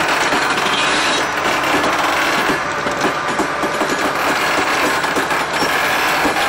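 Alco diesel locomotive rolling slowly along the track, a steady grinding and creaking from its wheels on the rails with irregular small clicks.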